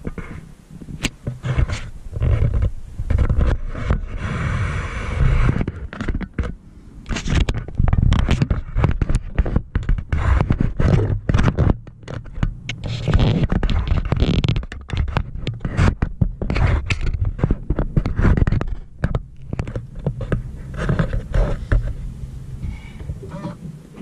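Irregular scraping, rubbing and crackling against the microphone, over a low rumble, coming and going in uneven spurts.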